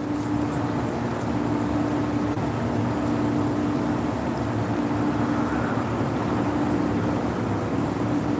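A steady mechanical hum and rushing noise, with a low tone that breaks off and comes back every second or so.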